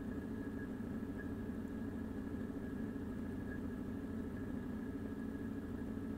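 A steady, unchanging hum with a faint high whine above it: constant background noise with no separate events.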